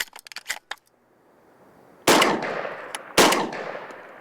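A few sharp clicks, then two shotgun shots about a second apart, each with a long echoing decay.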